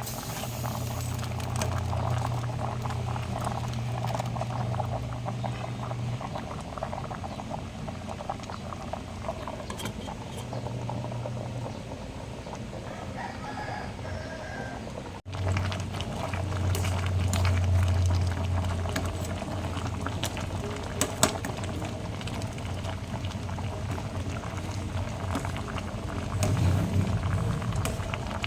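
Kare-kare stew bubbling in a pot on the stove, with a crackly simmer over a low, steady hum that fades in and out; the sound breaks off for an instant about halfway through.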